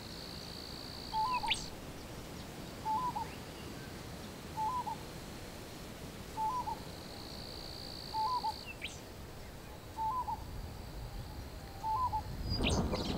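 A bird giving a short two-note hooting call, repeated evenly about every two seconds, seven times, over a steady high-pitched drone and a few quick high whistles. A rushing noise swells in near the end.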